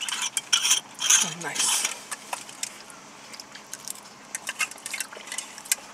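Eating sounds in a car: plastic forks clicking and scraping in takeout containers, busiest in the first two seconds, with a brief hum of a voice about a second in and scattered light clicks after.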